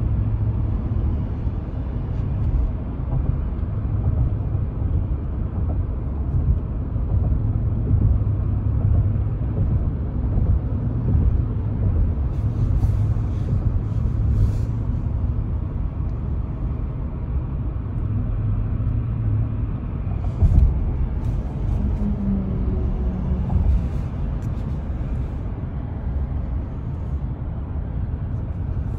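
Steady low road and engine rumble heard from inside a moving car's cabin, with one brief thump about twenty seconds in.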